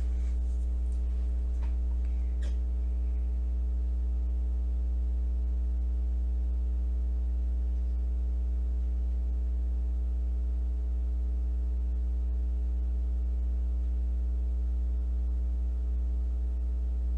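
Steady electrical mains hum: a strong low drone with a stack of evenly spaced, steady overtones above it. A few faint clicks come in the first couple of seconds.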